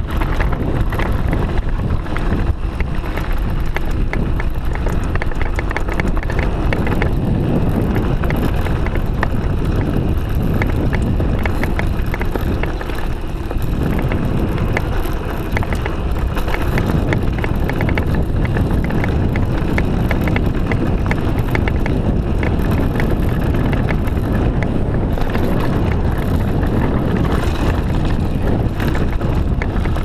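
Mountain bike riding fast down a dirt and gravel trail: a steady roar of tyres on the ground, with many small clicks and rattles from the bike over bumps. Wind buffets the microphone.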